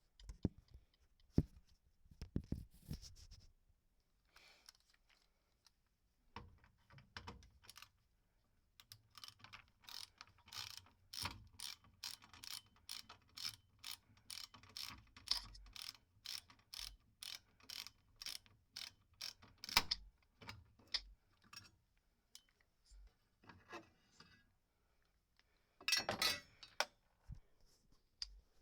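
Ratcheting hand tool clicking about twice a second as the installer works loose the cable end connector where the electrical whip enters the furnace, with scattered metal clicks and handling before it and a louder clatter near the end.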